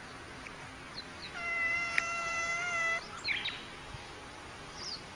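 Domestic tabby cat confronting a snake gives one long, level-pitched yowl of about a second and a half, starting about a second and a half in. A few brief high chirps follow.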